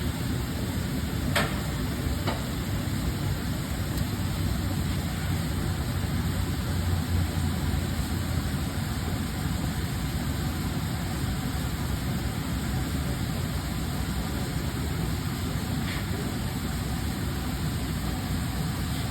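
Steady low machinery hum with an even hiss, with two short sharp clicks about a second and a half and two seconds in.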